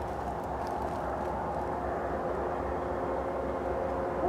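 Diesel-electric freight locomotives, led by CP GE ES44AC 8913, running steadily as the train approaches, a constant low rumble with several steady tones in it.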